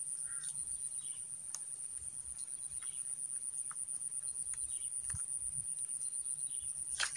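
Insects trilling steadily in a high, continuous tone that pulses several times a second, with faint scattered ticks. A short burst of noise comes near the end.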